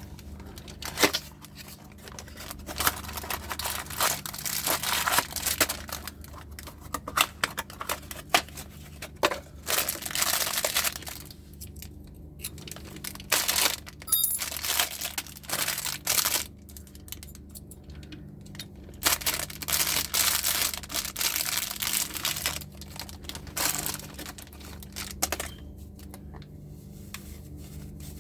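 Plastic crackling, crinkling and tearing in irregular bursts, with a sharp click about a second in, as a coffee machine water filter cartridge is cut and broken open.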